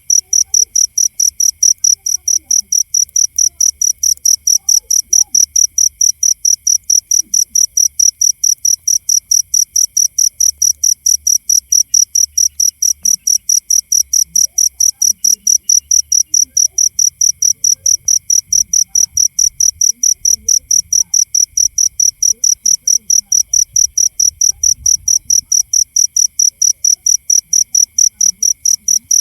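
Cricket chirping steadily, a high, even chirp repeated about three to four times a second without a break. A fainter, lower steady trill runs underneath.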